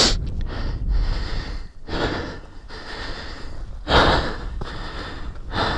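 A person breathing hard into the microphone, loud breaths a second or two apart, over a low wind rumble.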